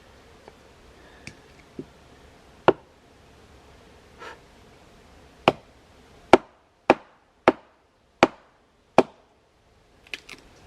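Firewood being chopped with a blade: a few light taps, then a run of six or seven sharp chops into wood, spaced a little under a second apart in the second half.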